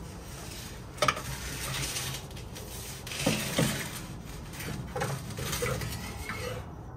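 Metal exhaust downpipe clanking and scraping against the car's underbody as it is worked up into place by hand, with a sharp clank about a second in and more knocks about three and a half and five seconds in.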